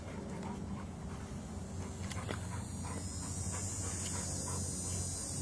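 Small sounds from a large dog on a leash, over a steady low background hum with scattered faint clicks; a high hiss comes in about halfway through.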